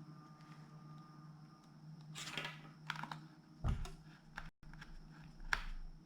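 A few scattered clicks, taps and a short scrape from small tools and laptop parts being handled during reassembly, over a steady low hum.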